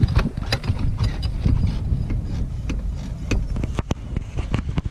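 Wind rumbling on the microphone, with irregular knocks and clicks as the broken front seat back of a Toyota Land Cruiser is pushed and handled.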